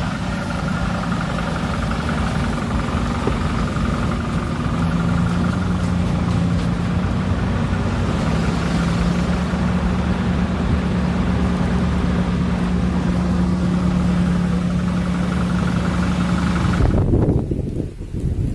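Vehicle engine idling, a steady low hum with a held drone, which cuts off abruptly near the end.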